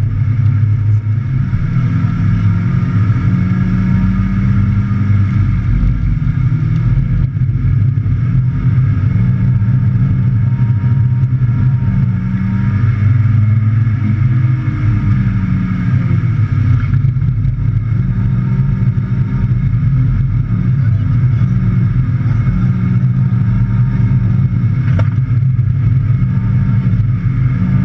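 Mazda MX-5 NB's 1.8-litre four-cylinder engine heard from inside the cabin, revs rising and falling repeatedly as the car is drifted on a wet track.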